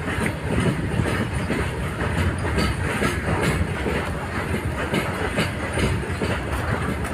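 Freight train of open steel wagons rolling past, with a steady rumble and a rapid, continuous clickety-clack of wheels over the track.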